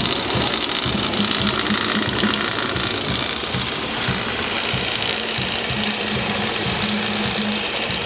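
Small Honda petrol engine running steadily under a dense hiss, with a fast even low pulse as it drives a coffee grinder.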